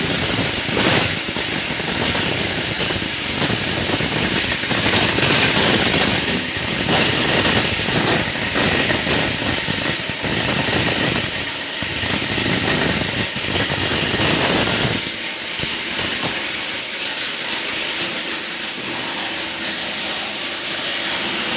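Heavy-duty plastic scrap grinder running with a dense, irregular crunching of plastic being cut. About fifteen seconds in, the low rumble drops away and the machine runs on with a lighter, hissing sound.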